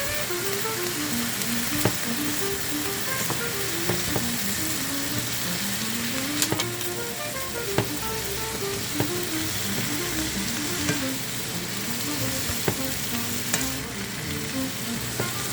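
Vegetables (long beans, shredded carrots and cabbage) sizzling steadily as they are stir-fried in a pan, with scattered sharp clicks of the utensil against the pan. Soft background music with a simple melody plays underneath.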